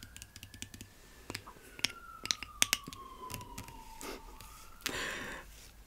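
An emergency-vehicle siren wailing slowly, rising and then falling in one long sweep that is still going near the end. Sharp clicks and taps close by are the loudest sounds, with a short rustling burst about five seconds in.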